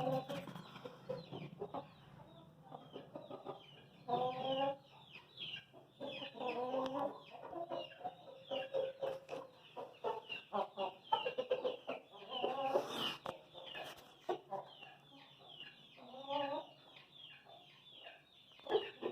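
Aseel chickens clucking and calling in repeated short pitched phrases, over a constant stream of quick high chirps.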